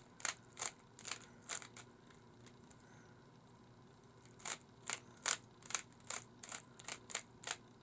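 Plastic Rubik's cube faces being turned, clicking sharply: a handful of quick clicks in the first second and a half, a pause of about two and a half seconds, then a run of about a dozen clicks at three to four a second.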